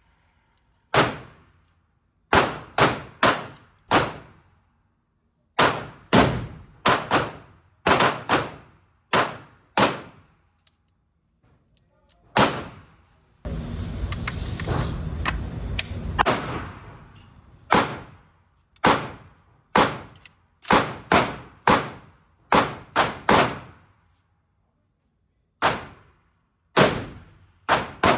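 Gunshots on an indoor range, about two dozen sharp reports in loose groups with pauses between, each with a short echo. A few seconds of dense, continuous loud noise come in the middle.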